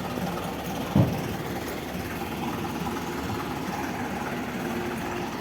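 Heavy construction machine's engine running steadily, with one loud clunk about a second in.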